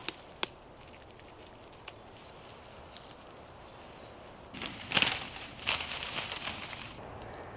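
Dry common reed stalks rustling and crackling as a hand grabs and pulls them. A few light clicks come first, then about four and a half seconds in a loud rustling burst lasting about two seconds.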